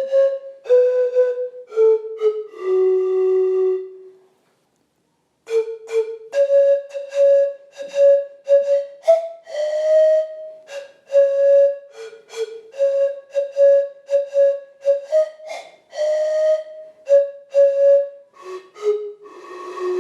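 Hand-made ceramic antara, a Nasca-style pan flute, blown note by note with a breathy, flute-like tone. A few stepping notes and a longer held low note come first, then a short gap, then a quick run of short notes mostly on one pitch with small steps up and down.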